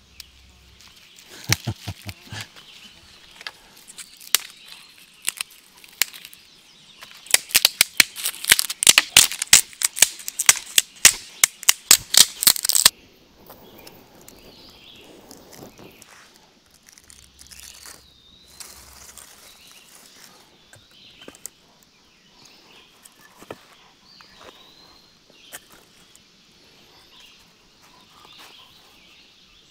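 Dry sticks and kindling for a campfire being snapped and handled: a dense run of sharp snaps and cracks lasting about six seconds in the middle, with scattered single snaps before and after it.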